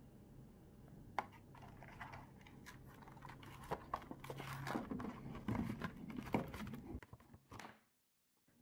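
Cardboard sleeve of a packaged lunch box being worked off its black plastic tray one-handed: rustling and scraping, with a few sharp plastic clicks. It stops abruptly near the end.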